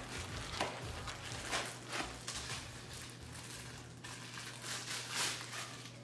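Packaging being handled: hands rustling and scraping in a foam insert and cardboard box while pulling out a vacuum accessory, a string of irregular soft scrapes and taps. A faint steady hum runs underneath.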